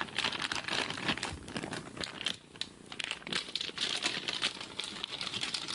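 Packaging crinkling and rustling in quick irregular crackles as a graphics card box is opened and its contents handled.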